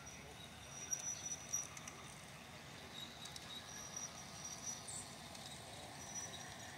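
Crickets trilling faintly in short, high-pitched spells of about half a second, with a few faint clicks.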